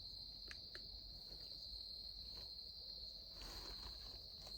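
Insects trilling in a steady, high, unbroken chorus, with two faint clicks about half a second in.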